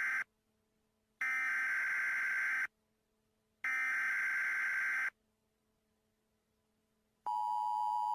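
Emergency Alert System SAME header: the tail of one digital data burst, then two more about a second and a half each with short silences between, followed about seven seconds in by the steady two-tone EAS attention signal.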